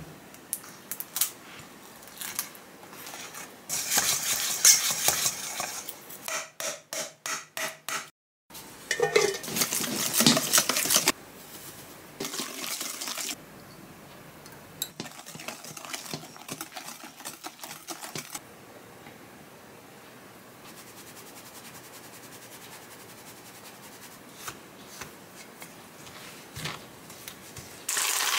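Wire balloon whisk beating butter in a stainless steel mixing bowl, the wires scraping and clattering against the metal in bursts, at one point in quick strokes about four a second: butter being creamed by hand. Near the end, a louder crinkling of a plastic bag as chocolate chips are poured in.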